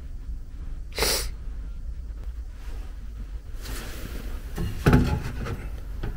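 A person's sharp sniff close to the microphone about a second in, a softer breath around four seconds, and a dull handling thump near five seconds, over a low steady hum.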